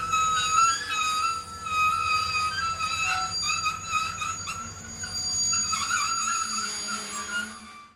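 Steady whistling wind: a wavering high whistle over a low rumble, fading out near the end.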